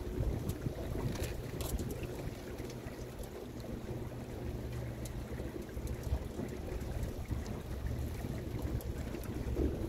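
A boat's motor running with a low, steady hum under wind rumbling on the microphone and water noise. A few faint splashes come about a second in.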